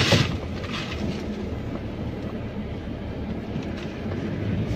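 Car driving slowly on an unpaved dirt road, heard from inside the cabin: a steady low rumble of engine and tyres on the rough surface.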